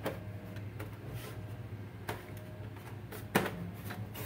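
Hard plastic parts of a computer's rear housing being handled and fitted: a few scattered light clicks and taps, with a louder knock about three and a half seconds in, over a steady low hum.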